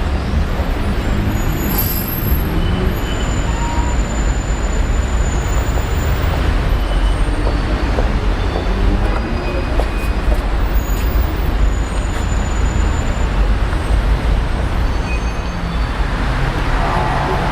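Steady city street traffic noise, mostly a low rumble of passing vehicles.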